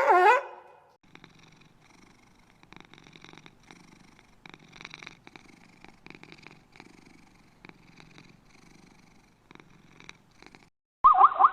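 A cat purring softly in uneven pulses. A louder wavering animal call cuts off about a second in, and another loud pitched call starts near the end.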